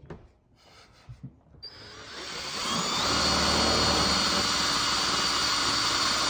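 Makita cordless drill boring through a car's metal boot lid. It starts about a second and a half in, builds up over about a second, then runs steadily.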